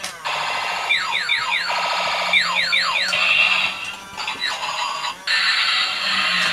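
Battery-powered Super Change Optimus Prime toy truck's electronic sound effects: runs of quick, falling laser-like zaps, then from about five seconds a steady harsh whir as the truck starts transforming into a robot.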